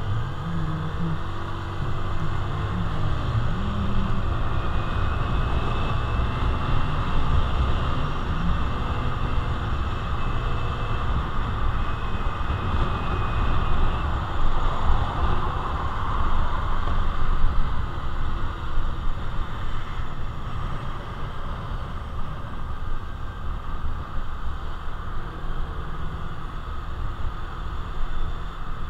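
Honda Navi's small single-cylinder engine running at road speed, under a steady rush of wind and road noise on an action-camera microphone. The engine's pitch wavers in the first few seconds.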